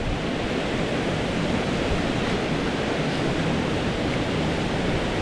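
Water rushing steadily over a low concrete weir: a continuous, even wash of white-water noise.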